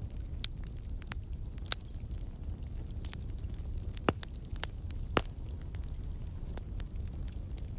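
Wood fire crackling in a fireplace: scattered sharp pops and snaps over a steady low rumble, with two louder pops about four and five seconds in.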